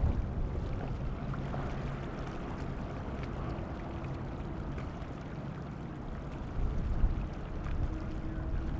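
Large motor yacht's engines running at speed with a steady low drone, mixed with the rushing of its wake. A higher steady engine note comes in near the end.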